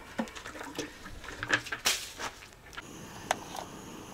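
Irregular clicks, knocks and light clatter of things being handled. A faint steady high hiss or whine sets in about three seconds in.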